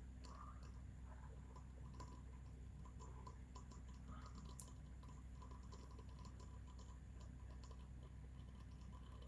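Near silence: a faint steady low hum with scattered faint ticks.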